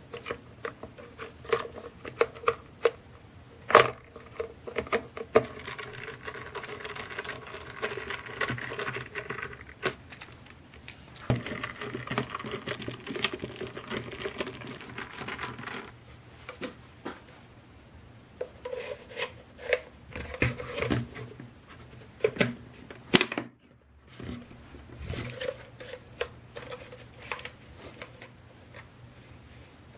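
A screwdriver turning screws into the plastic cyclone housing of a Dyson V6 stick vacuum, heard as two stretches of scratchy grinding a few seconds long, among many sharp clicks and knocks of plastic parts being handled.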